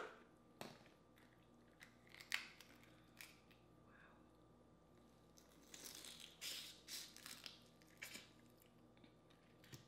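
Boiled crawfish being twisted apart and peeled by hand: faint scattered cracks and crackles of shell, a sharper snap a little over two seconds in, and a cluster of crackling around six to seven seconds in.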